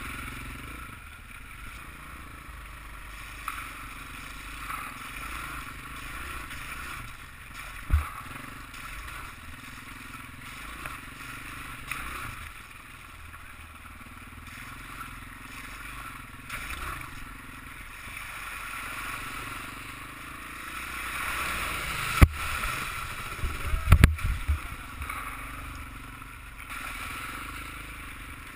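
Off-road motorbike engine running steadily as heard from a helmet camera, its pitch wavering with the throttle. There is one sharp knock about eight seconds in and several more close together near the end.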